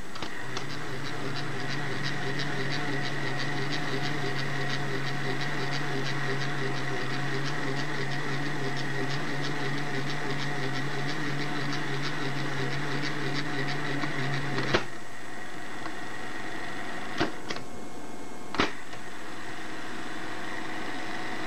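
1961 Webcor Microcorder EP-2104 battery reel-to-reel tape recorder running: a steady motor hum with fast, regular ticking from the tape transport. About fifteen seconds in it stops with a click, and a few more sharp clicks follow.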